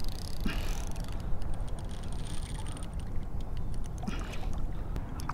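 Wind rumbling on the microphone and water lapping around a kayak, with scattered light clicks from a baitcasting reel while a hooked redfish is played close to the boat.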